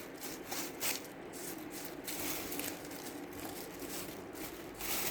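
Irregular dry rustling and crinkling as a cut sunflower head and its leaves are handled, over a faint steady hum.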